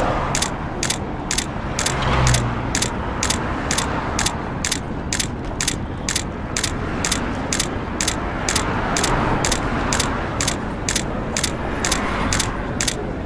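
Film projector sound effect: mechanical clicking at about three a second over a steady whirring hiss and low hum.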